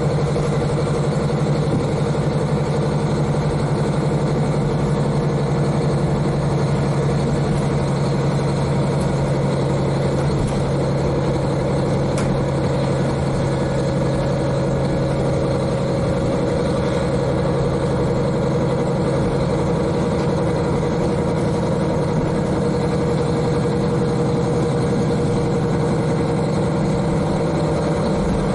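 Diesel railcar's N-DMF13HZI six-cylinder turbocharged diesel engine running steadily under way, heard from the cabin floor directly above the engine, with the car's running noise mixed in.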